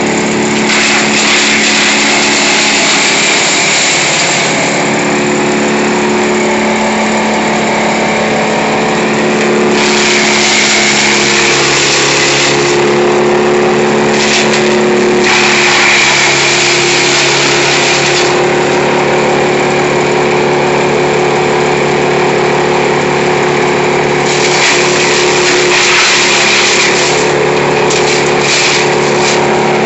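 Vermeer BC1000 wood chipper running steadily while branches are fed in, the chipper grinding through them in spells with a louder rushing hiss each time a bundle goes through.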